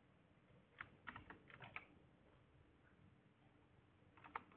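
Faint computer keyboard keystrokes: a quick run of several clicks about a second in, then a couple more near the end.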